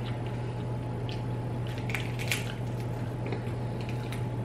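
Snow crab legs being snapped and pulled apart by hand: a few short sharp cracks of shell with wet squishing, over a steady low hum.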